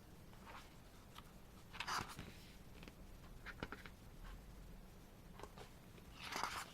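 Faint handling noise from the contents of a boxed K-pop album being gone through: a few brief rustles and light taps, the loudest about two seconds in and near the end.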